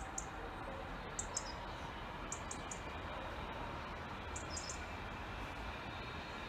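Small bird calling: short, very high, thin chirps in quick twos and threes every second or two, over a steady outdoor hiss.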